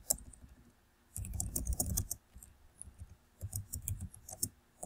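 Computer keyboard typing in several short runs of quick key clicks.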